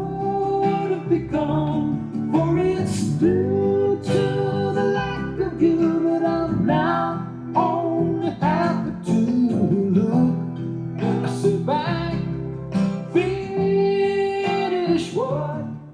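A song with a singing voice over plucked acoustic guitar, fading out at the end.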